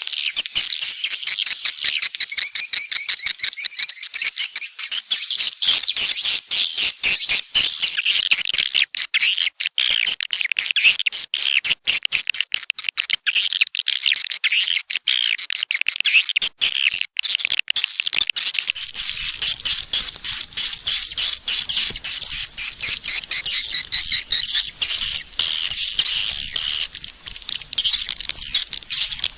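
Swiftlets of the edible-nest kind twittering in a dense, continuous chorus of rapid, high chirps.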